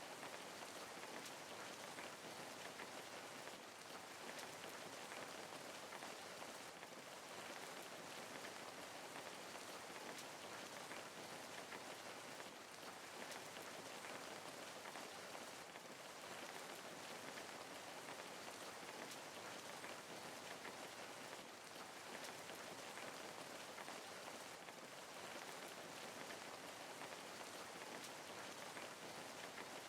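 Steady rain falling on a surface, a soft even patter of many drops.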